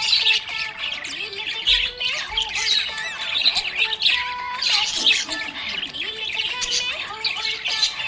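Budgerigars chirping and squawking in a dense, overlapping chatter of quick, high calls.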